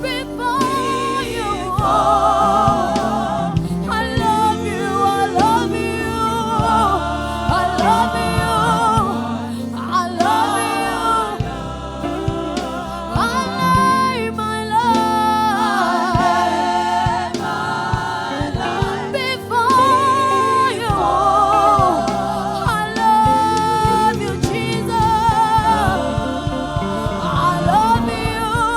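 Gospel music with a choir singing over keyboard and bass.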